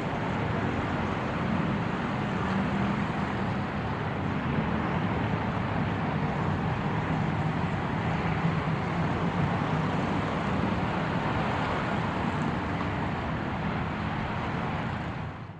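A car running steadily, with a low engine hum under a broad hiss of road noise. It fades out quickly at the very end.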